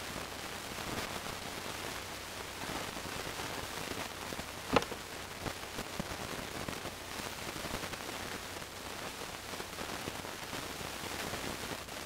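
Steady crackly hiss with one sharp click about five seconds in, followed by two fainter clicks.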